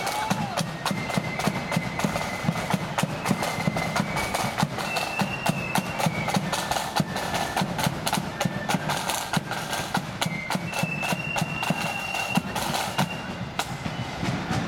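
Marching flute band playing, many flutes in unison holding high notes that step from one pitch to the next over busy, rapid side drumming.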